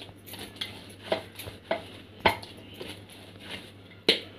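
Oiled hands gathering and pressing a soft thalipeeth dough into a ball in a steel parat, with irregular knocks and clatters against the steel plate. The sharpest knocks come a little past two seconds and again near the end.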